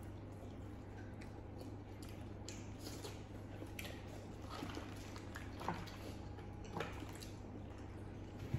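Faint wet clicks and crackles of crab and prawn shells being cracked and peeled by hand, with some chewing, over a steady low hum; two slightly sharper ticks come a little past the middle.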